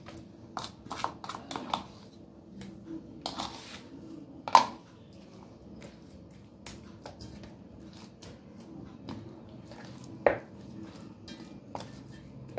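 Kitchen handling sounds of marinating fish: a spoon clicking and scraping against a steel tray and plastic bowl while spice paste is spread on raw fish pieces, then hands working the paste into the fish. Scattered light clicks, with two sharper knocks about four and a half and ten seconds in.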